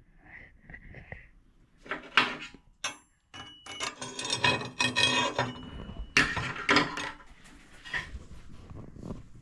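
Quarter-inch steel plates being handled: irregular metallic clanking and scraping, with brief ringing tones, for several seconds in the middle, then quieter handling.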